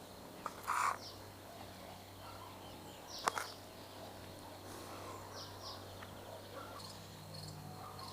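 Crickets chirping faintly in a steady high trill, broken by a short clink just under a second in and a sharp click about three seconds in.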